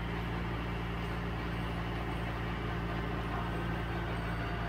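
Mahindra 4540 tractor's diesel engine running steadily with a box blade on the rear quick hitch, an even low drone.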